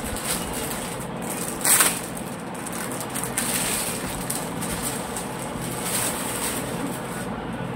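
Clear plastic packaging crinkling and rustling as clothes are pulled out of it and handled, in short bursts, the loudest just under two seconds in, over steady background noise.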